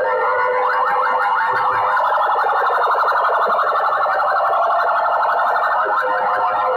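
A stack of aluminium horn loudspeakers from a competition sound rig blaring a loud, distorted siren-like tone at full volume, with a fast warble strongest in the middle.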